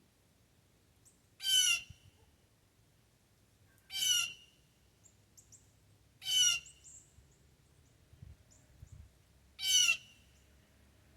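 Blue jay giving four loud, harsh jeer calls, each about half a second long and spaced a few seconds apart. Faint high chirps are heard between them.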